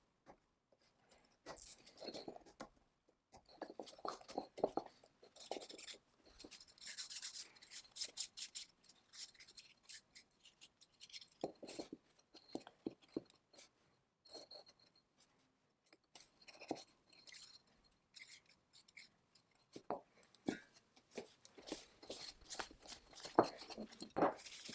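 Piston rings being pressed into the grooves of a chainsaw piston by hand and checked for free movement: small, irregular metal clicks and scraping. A cloth rag rubs against the piston near the end.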